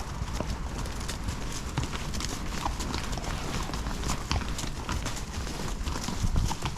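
Horse's hooves clopping at a walk on a forest track, an irregular run of knocks and clicks.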